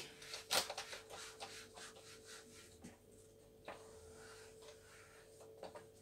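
Felt whiteboard eraser wiping marker writing off a whiteboard in quick, light rubbing strokes. The strokes are busiest in the first couple of seconds, then come only now and then.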